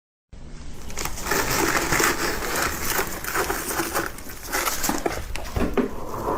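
Frost being bitten and chewed close to the microphone: a quick, irregular run of crisp crunches.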